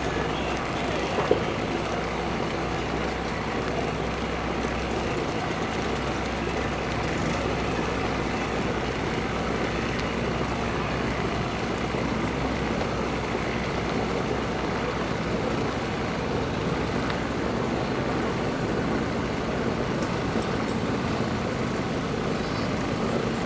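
An engine running steadily, with a constant low hum under a noisy outdoor background.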